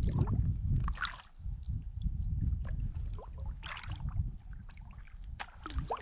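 Kayak paddle strokes on flat water: the blade splashes and drips about every two and a half seconds, over a steady low rumble.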